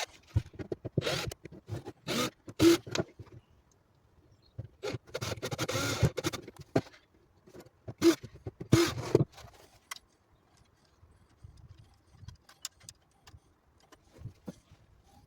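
Irregular knocks, clatters and scrapes of hard objects being handled and set down, with one longer scraping rub about five to seven seconds in. The last third is mostly quiet, with a few small ticks.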